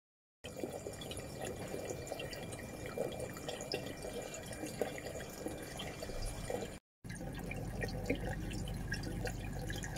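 Water trickling and dripping in a hydroponic tray, a steady patter of many small drops. It starts about half a second in and breaks off for a moment near the end before carrying on.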